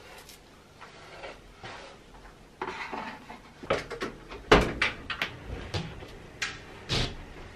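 Household handling noises: a string of sharp knocks and clatters like a cupboard door and objects being moved, loudest about halfway through, with another strong knock near the end.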